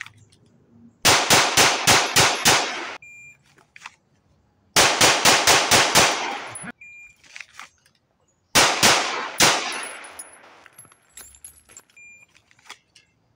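Three strings of rapid 9mm pistol shots from an Arex Delta, each string fired a second or two after a shot timer's short start beep. The first two strings are about six shots each, fired about three a second. The last string is shorter.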